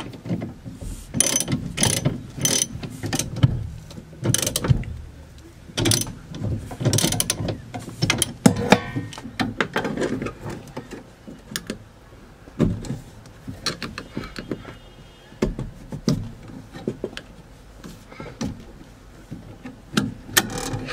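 Hand ratchet clicking in short runs while bolts are done up, with sharper knocks of the tool on metal in between.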